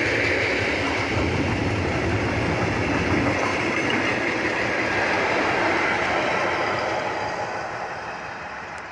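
Freight wagons rolling past at speed: a steady rumble of wheels on the rails with a faint high wheel ringing. The noise fades over the last couple of seconds as the tail of the train moves away.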